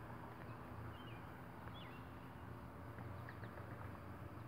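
A few short, high bird chirps, about one, two and three seconds in, over a faint steady low hum.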